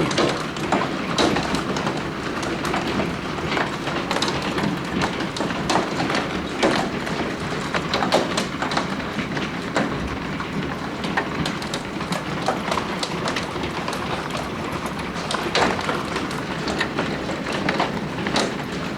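Hailstones of marble to quarter size pelting down together with rain: a dense, steady clatter of countless small hits with sharper single strikes scattered through it.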